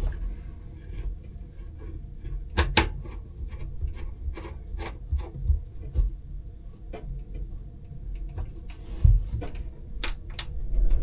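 Gloved hands working among wiring and fittings in a boat's battery compartment: scattered rubbing, small clicks and knocks, with a sharper pair of clicks about two and a half seconds in and another pair near the end.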